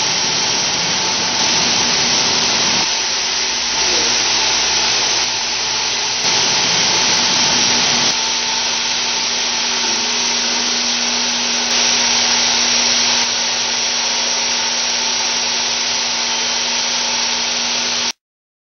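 Automatic multi-stage vegetable washing line running: a steady, dense rush of churning, aerated water in the stainless washing tanks over a constant low machine hum, the loudness stepping slightly up and down every few seconds, then cutting off suddenly near the end.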